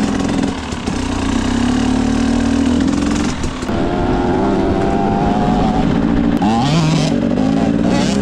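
Freshly rebuilt Husqvarna 300 two-stroke enduro motorcycle ridden off-road at low revs while being run in on a new piston and cylinder. The engine note rises as it pulls, eases off about three seconds in, climbs again, then dips and picks up once more near the end.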